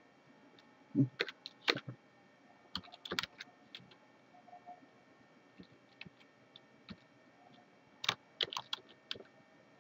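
Computer keyboard typing in three short bursts of keystrokes: about a second in, around three seconds in, and again near the end.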